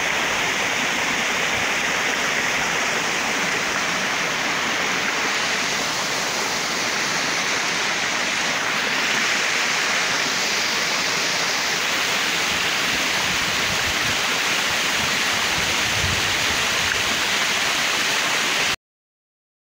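Steady rushing hiss, even and unbroken, that cuts off suddenly near the end.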